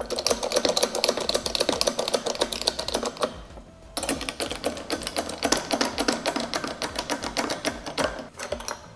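Hand-pumped hydraulic bottle jacks on a frame press, their levers worked to build clamping pressure on a glued-up board: a fast run of clicks in two spells, with a short break about three and a half seconds in.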